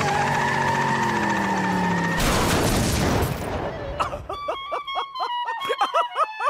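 Cartoon soundtrack: slowly falling tones, then a burst of crash-like noise about two seconds in, followed by a cartoon cat's rapid, staccato laughter over music.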